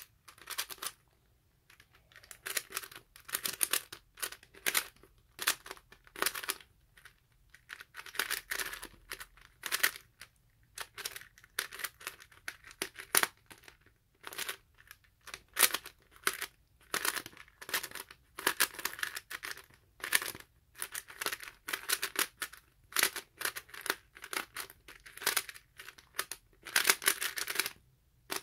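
LEGO-brick 3x3 puzzle cube being turned fast during a speedsolve: bursts of rapid plastic clicking and clacking as the layers turn, broken by short pauses.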